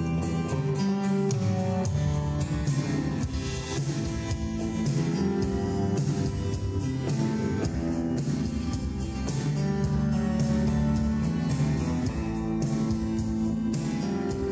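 Live instrumental music led by guitar, played over a steady beat.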